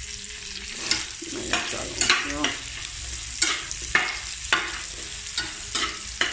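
Onions and chicken sizzling in a nonstick frying pan while a slotted spatula stirs them, scraping across the pan about twice a second over a steady frying hiss.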